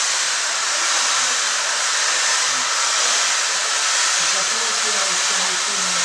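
Steady, loud rushing hiss that does not change, with faint voices of people talking underneath it.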